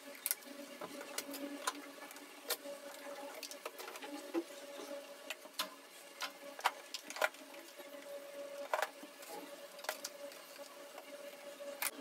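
A mop worked over a tiled floor: irregular clicks and knocks of the mop head and handle, a few a second, over a faint steady hum.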